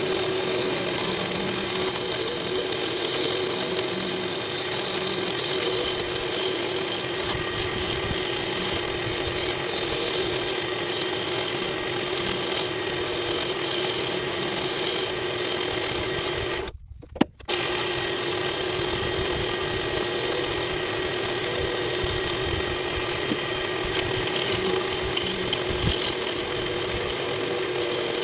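Small wood lathe running steadily while a pen blank is turned, the tool scraping on the spinning blank over a constant motor hum; the sound drops out briefly about two-thirds of the way through, then resumes.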